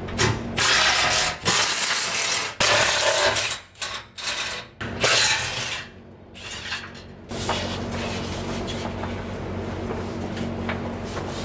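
A power tool working bolts under the truck in several bursts of about a second each while the fuel tank is being dropped. About seven seconds in the bursts stop and a steady low hum continues.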